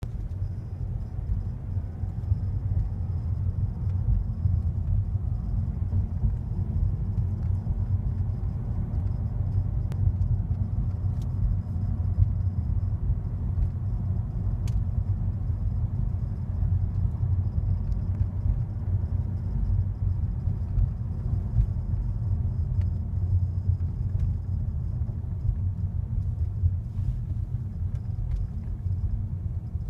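Steady low rumble from a 2014 Mazda 3 GT, with a few faint clicks a little after the third of the way in, where the owner is capturing a strange creaking and vibration from the car.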